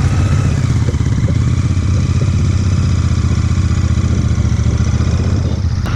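Royal Enfield Interceptor 650's parallel-twin engine running steadily at cruising speed, heard from the rider's seat, over a steady rush of noise.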